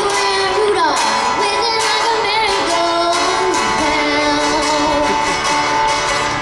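A young girl singing while strumming an acoustic guitar, amplified through a stage sound system. Her voice slides down in pitch about a second in.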